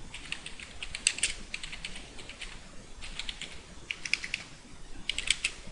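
Computer keyboard keys clicking as a sentence is typed, in short irregular runs of keystrokes with brief pauses between them.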